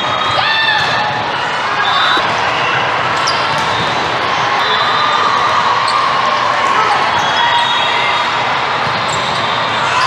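Indoor volleyball play: the ball is struck and bounces, with many voices from players and spectators echoing in a large hall. Short high tones and squeaks are heard now and then.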